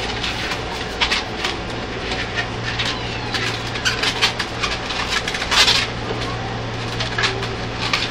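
Modelling balloons squeaking and rubbing in quick, irregular bursts as they are twisted and bent into a balloon hat, the loudest squeak a little past halfway. Under them runs the steady low hum of the train carriage.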